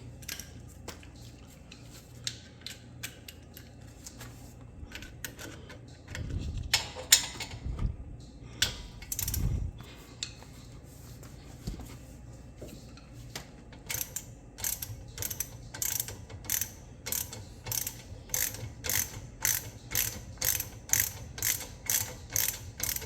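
Hand ratchet with a T45 Torx bit turning out the lower brake caliper bolt. There are scattered clicks and a few louder knocks and scrapes in the first half, then from about halfway a steady run of ratchet clicks, about two a second, as the loosened bolt is wound out.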